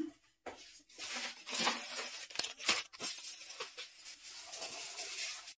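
Faint scattered clicks and short rustles, like small objects being handled.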